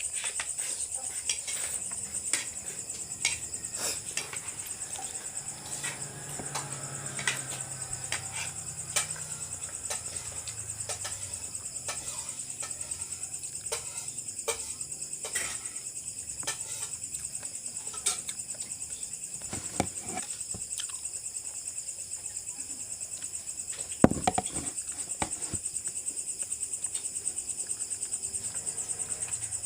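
Steady high-pitched chirping of an insect chorus, with scattered light clicks and knocks throughout and one sharper, louder knock about 24 seconds in.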